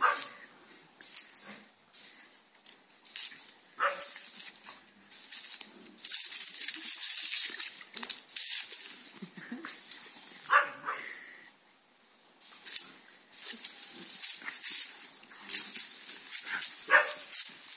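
Smooth fox terrier barking, a handful of short high barks a few seconds apart, two of them close together near the end. Between the barks, the water jet from a garden hose spray gun hisses in long stretches.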